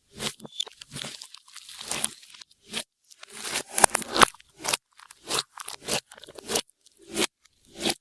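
Slime being squeezed and worked by hand, crackling and crunching in short irregular bursts with brief pauses between them.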